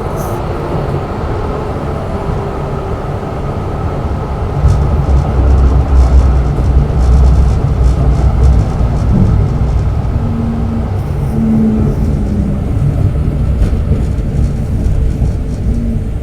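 Zürich Tram 2000 running on its rails, heard from inside the car: a steady rumble of wheels and running gear that grows louder about four and a half seconds in, with a few short humming tones later on.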